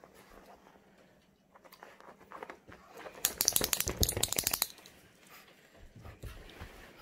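French Bulldog puppy scrabbling and digging at its fabric dog bed: a burst of rapid scratching and rustling lasting about a second and a half, a few seconds in, with fainter rustling around it.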